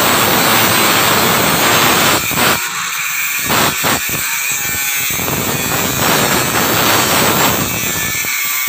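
Angle grinder cutting a corrugated galvanized steel deck sheet: a harsh, steady grinding that breaks off briefly twice around the middle, then carries on.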